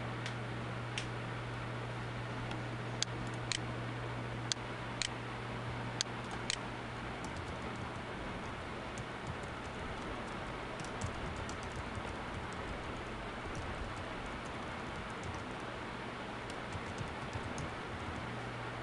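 Computer keyboard typing: scattered, irregular keystrokes, with a few louder clicks in the first several seconds and a run of lighter key taps in the second half, over a steady low electrical hum and hiss.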